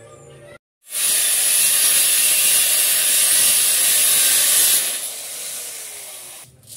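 Handheld angle grinder cutting through a thin steel bar: a loud, hissing grind for about four seconds, then quieter with a falling whine as the cut finishes and the disc runs down.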